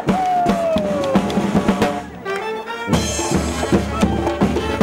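Street brass band playing with bass drum and tuba, a single note sliding downward in the first second. The music drops away briefly about two seconds in, then comes back in full.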